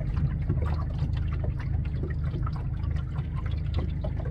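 River water lapping and trickling against the side of a boat, with small irregular splashes over a steady low rumble.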